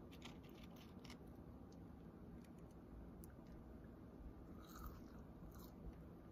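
Faint biting and chewing of food, with a few small clicks in the first second.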